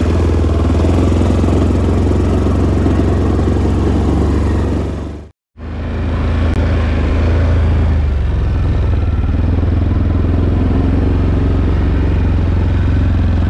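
Four-wheeler (ATV) engine running steadily, heard from on board. The sound cuts out to silence for a split second about five seconds in, then carries on the same.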